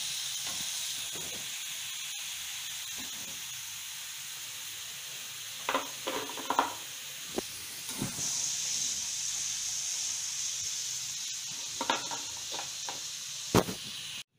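Cornflour-coated chicken strips deep-frying in hot oil, a steady sizzle that gets louder about eight seconds in. A wire skimmer knocks against the pan several times as the pieces are lifted out.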